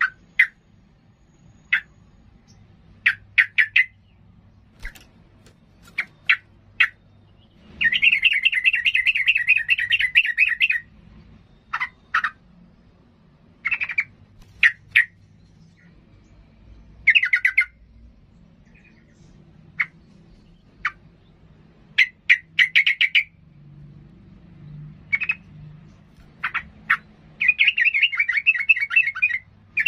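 Caged yellow-vented bulbul (trucukan) singing in full song: short, sharp calls and brief phrases, broken by three longer runs of fast chattering notes lasting up to three seconds, about eight seconds in, again near seventeen seconds, and near the end.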